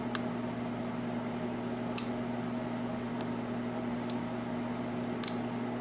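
A few faint, sharp clicks of a lock pick working the pins of a six-pin Yale pin-tumbler rim cylinder under tension, one about two seconds in and a quick pair near the end, over a steady electrical hum.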